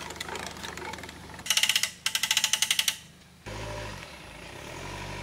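Boat trailer's hand-cranked winch ratcheting: a fast run of loud clicks, about a dozen a second, lasting about a second and a half. After a short pause a car engine comes in suddenly, running with a low steady hum.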